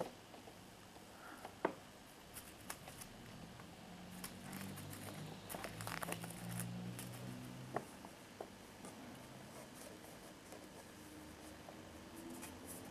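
Faint paper crinkling and scattered light ticks as a kitten paws and bats a small crumpled paper ball, busiest in the middle stretch.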